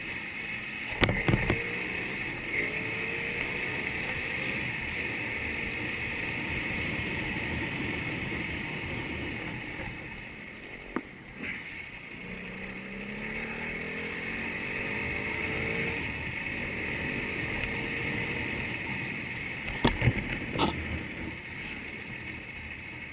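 Motorcycle engine running under way, its pitch rising twice as it accelerates, over a steady hiss. A few sharp knocks come about a second in, midway and near the end.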